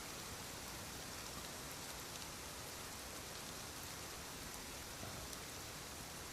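A steady, even hiss with no snore standing out.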